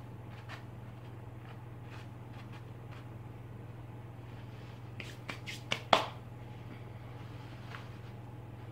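A hand brushing and pressing a pile of dirt on a paper sheet: soft rustles and scrapes, with a quick cluster of sharper paper taps and crackles about five to six seconds in, over a steady low hum.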